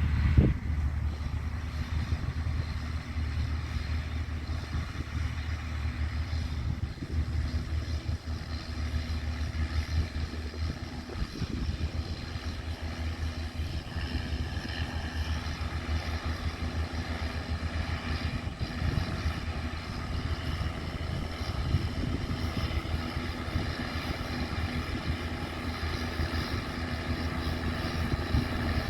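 Diesel tractor engine running steadily, a continuous low drone.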